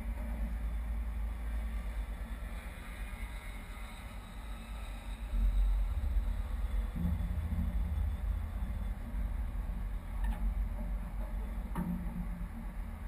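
Twin diesel engines of a Lagoon 450 catamaran running at low speed under way, a steady low rumble that swells about five and a half seconds in, with two short knocks near the end.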